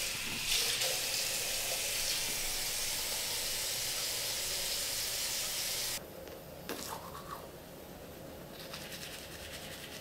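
Water running steadily from a tap into a sink, shut off suddenly about six seconds in; a few faint knocks follow.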